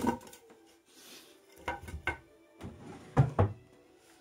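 Several sharp wooden knocks and clunks as a wooden board is handled against a wooden chest of drawers: a pair at the start, two more about two seconds in, and the loudest two about three seconds in.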